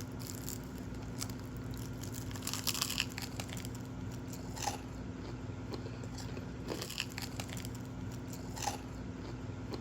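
Crunchy chicken being bitten and chewed close to the microphone: clusters of crisp crunches come every couple of seconds, the loudest about two and a half to three seconds in. A steady low hum runs underneath.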